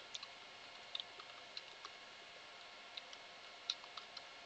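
Faint computer keyboard keystrokes: irregular clicks in two short runs with a pause of about a second between them, over a steady low hiss.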